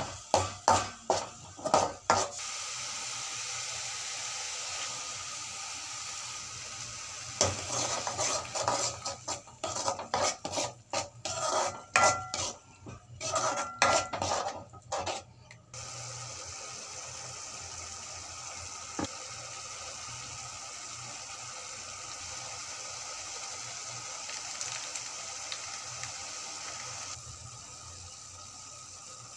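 A metal spoon scraping and clattering against an aluminium kadai while stirring frying onion-tomato masala, in two spells of stirring: briefly at the start, then again for about eight seconds. Steady sizzling runs between the spells and through the second half.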